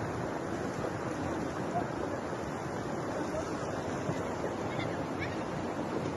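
Floodwater rushing down a street, a steady, even roar of moving water.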